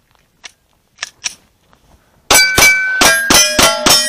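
Glock 48 9mm pistol fired in a rapid string of about six shots in under two seconds, starting a little past halfway. Each hit sets the steel targets ringing, and the metallic tones linger between and after the shots.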